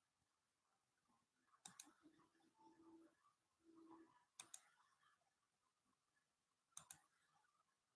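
Near silence broken by faint double clicks, three of them about two and a half seconds apart, with a faint low hum in the middle.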